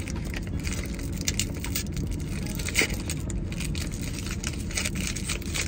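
Paper wrapper of a breakfast burrito crinkling and crackling as it is pulled open by hand, in many short crackles with a sharper one a little under three seconds in, over the steady low hum of a car running.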